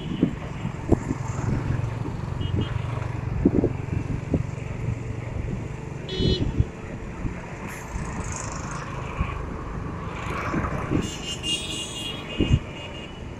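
Road traffic running steadily with a low hum and scattered knocks. Short high horn toots sound about six seconds in and again near the end.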